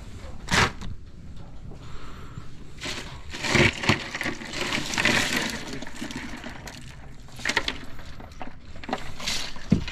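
Crushed ice crunching and rattling in a boat's fish box as fish are pushed down into it, with a few sharp clatters and a longer stretch of crunching about three to five seconds in.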